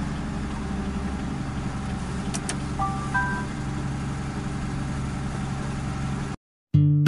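Truck engine and road noise running steadily inside the cab as the truck moves slowly. About three seconds in, a short electronic chime of three rising notes sounds. Near the end the sound cuts off and guitar background music begins.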